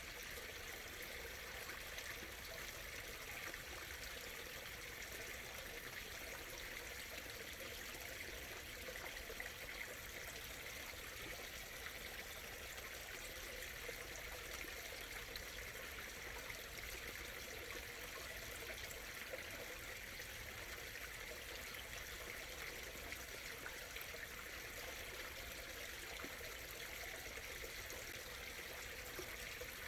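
A small stream murmuring and trickling over stones, a steady even flow of water.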